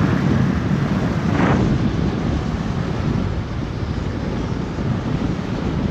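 Wind rushing over a handlebar-mounted microphone on a Harley-Davidson coasting downhill with its engine off: a steady rushing noise with no engine running, and a short louder whoosh about one and a half seconds in.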